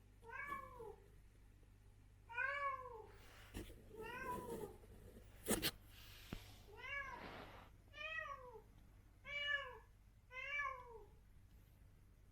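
Adult female cat meowing seven times, each meow rising then falling in pitch. A sharp click is heard about five and a half seconds in.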